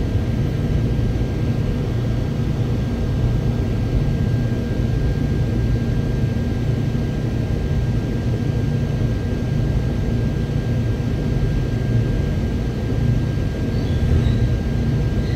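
Seoul Subway Line 4 electric train running, heard from inside the car: a steady rumble of wheels and running gear with a thin, steady high tone over it.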